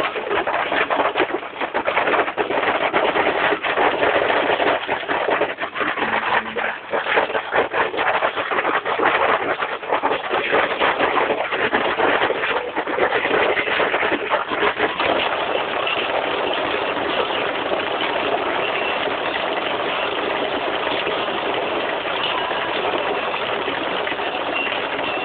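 Heavy rain mixed with hail coming down hard. It is a dense clatter of separate hits for roughly the first half, then settles into a steadier hiss of rain.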